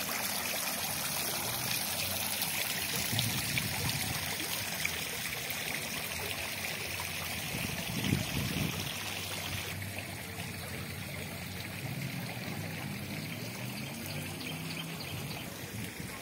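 Water trickling and splashing from a tiered stone garden fountain into its basin, a steady rush of water noise that turns abruptly softer about ten seconds in.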